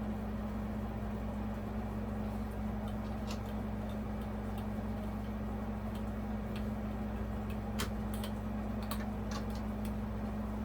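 A few sharp, light clicks and taps of small hardware being handled during hand assembly of a ceiling fan, over a steady low hum.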